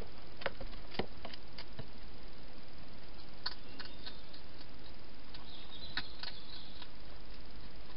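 Hedgehog eating from bowls inside a plastic feeding box: scattered sharp clicks and crunches, a few at a time, over a steady hiss.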